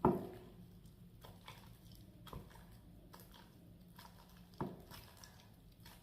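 Homemade glue slime being kneaded and squeezed by hand as body wash is worked in: soft, sticky squelches and small pops. The louder pops come at the start, about two seconds in, and again a little before five seconds.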